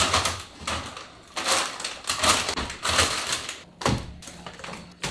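Packaged food being put away in kitchen cabinets: cardboard cereal boxes and plastic snack bags rustling in irregular bursts, and a wire pull-out basket clattering, with a sharp knock about four seconds in.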